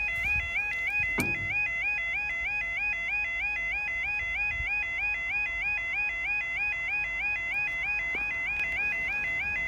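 Level crossing audible warning alarm yelping: a rising electronic tone repeating about four times a second, sounding while the barriers are down to warn that a train is coming.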